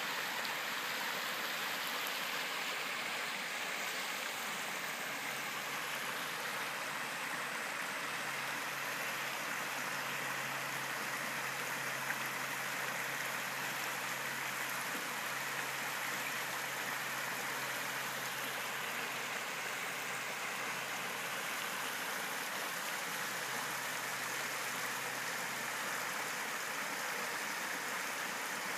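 Small river running steadily over a riffle: a continuous, even rush of flowing water.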